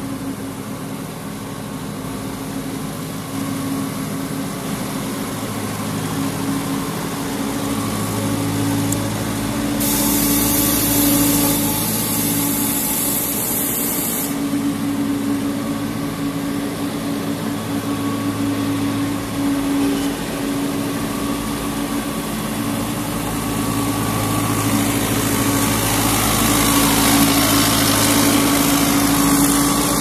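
Engine of a Wolwa GNJB120 self-loading concrete mixer truck running steadily as the truck drives and turns, growing louder near the end as it comes close.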